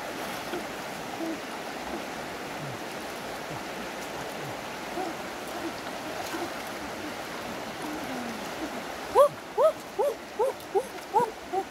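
Shallow river running steadily over stones. From about nine seconds in comes a quick, irregular run of loud, hollow, pitched plops, about three a second, as hands scoop and slosh in the shallow water.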